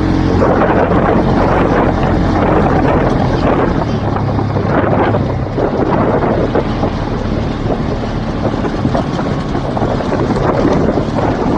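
Polaris RZR side-by-side's engine running under way, its steady tone clearest at first and then largely covered by wind rushing on the microphone.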